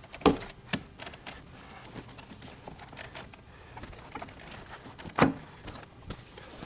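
Sharp knocks and lighter clicks of a metal strut tower bar being handled and set in place over the shock tower mounts, with two louder knocks just after the start and about five seconds in.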